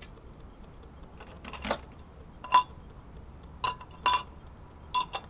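A spoon stirring in a small metal cup of soup, making several sharp metallic clinks against the cup, each ringing briefly.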